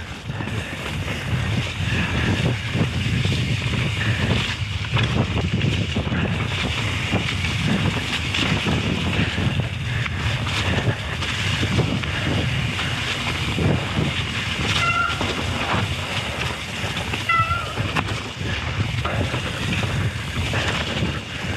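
Mountain bike descending a wet, muddy trail: continuous tyre and rattling noise, thick with knocks as the bike runs over rough ground. Short high squeaks come twice, a couple of seconds apart, past the middle.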